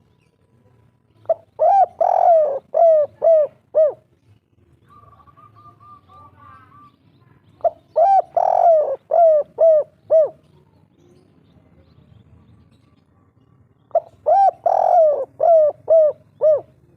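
Spotted dove cooing its 'kuk 3' song in three phrases about six seconds apart, each a quick run of about six short coos. A faint higher trill from another bird comes between the first two phrases.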